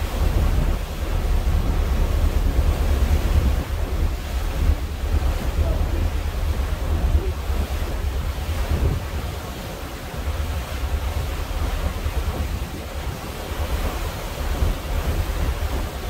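Wind buffeting the microphone in a low rumble that rises and falls in gusts, over a steady wash of small waves on open water.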